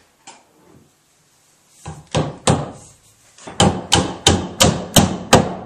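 A hand-turned wooden draw-dowel peg being hammered into the offset holes of a glued oak mortise-and-tenon joint: two blows, a short pause, then a quick run of about seven sharp blows at roughly three a second. The blows drive the tapered peg past the offset, drawing the table leg tightly into the pedestal joint.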